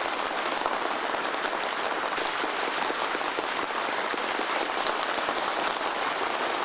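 A group of people applauding: dense, steady clapping of many hands.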